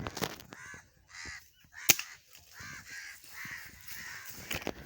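Crows cawing over and over in a quick run of harsh calls. One sharp crack stands out about two seconds in.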